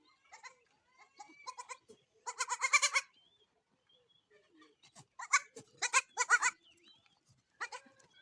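Goats bleating: one long, loud wavering bleat a couple of seconds in, then a run of shorter bleats in the second half.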